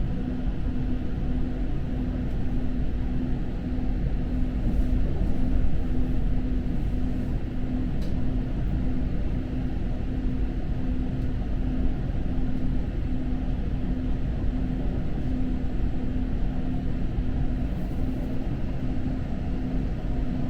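Steady running rumble of a moving electric passenger train at speed, heard from inside the car, with a constant low hum over it.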